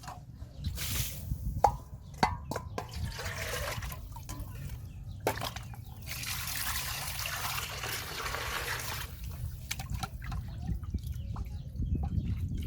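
Water splashing and pouring, with a few sharp knocks and drips, over a steady low rumble; a longer stretch of pouring runs through the middle.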